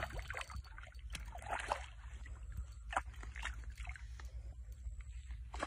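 A hooked crucian carp thrashing and splashing at the water's surface, in irregular bursts of splashes.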